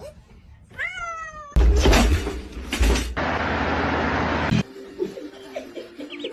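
A cat meows once, about a second in. It is followed by a louder stretch of noise with a low rumble that cuts off suddenly.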